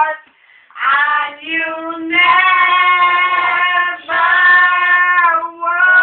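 Two women singing loudly together. After a short pause at the start come a couple of quick notes, then long drawn-out notes of about two seconds each.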